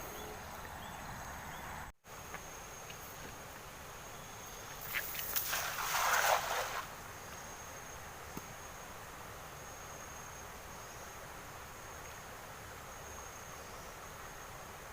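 Crickets chirring steadily in the background, with a louder noisy sound of about two seconds' length from about five seconds in.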